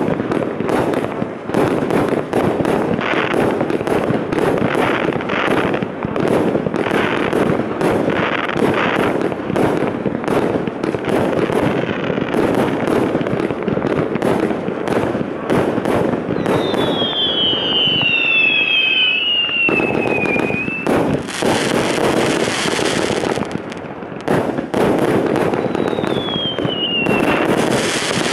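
A Ghettoblaster consumer fireworks combination cake firing: a rapid, nearly unbroken string of shots launching and bursting. Falling whistles sound about two-thirds of the way in and again near the end.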